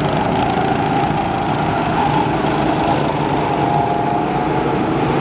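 Several small petrol go-kart engines running as the karts circle the track: a steady drone whose pitch rises and falls a little.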